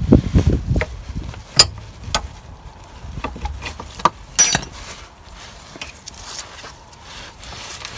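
Metal parts being handled as a rear brake caliper is worked free of its handbrake cable: scattered clicks and knocks, with one sharp metallic clink about four and a half seconds in, the loudest sound.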